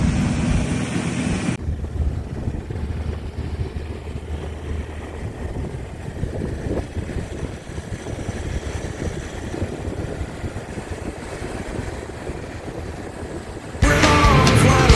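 Land Rover Defender's 2.4-litre four-cylinder turbodiesel running at a low steady pitch as it drives along beach sand. The sound changes abruptly about a second and a half in, and loud rock music cuts in near the end.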